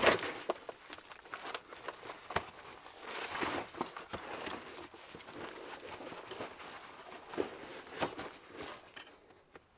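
Irregular scuffs, scrapes and clicks of hiking boots and hands on sandstone, with backpack gear rustling, as a hiker climbs a rock ledge.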